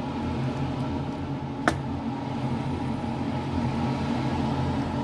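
Steady low hum of a kitchen fan or cooktop running while a spatula stirs a milky sauce in a frying pan, with one sharp knock of the spatula against the pan about one and a half seconds in.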